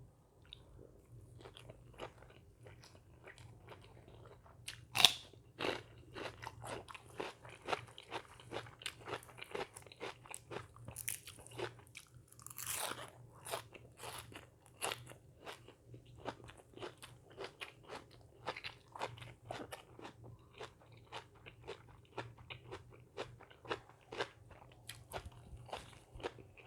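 A person chewing and biting crunchy food close to the microphone: a steady run of irregular crunches, several a second, with a few louder bites. A faint low hum runs underneath.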